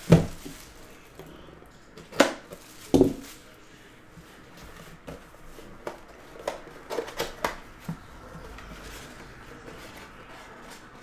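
Cardboard retail boxes handled on a table: a knock as a box is set down right at the start, two more thumps about two and three seconds in, then a run of light taps and scrapes as the box is turned over and opened.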